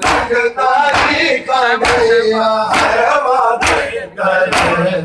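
Men doing matam: many open hands slapping bare chests in unison, one loud beat roughly every second, over a crowd of male voices chanting a Punjabi noha lament.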